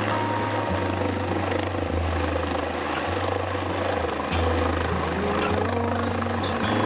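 Air ambulance helicopter's rotor and turbine noise as it descends and touches down, with a song playing over it, its slow bass notes changing every second or so.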